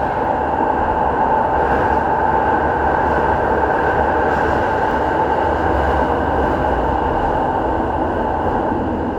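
Keihan 800 series train running through a subway tunnel: a steady, loud running noise of wheels on rail with a steady hum held over it.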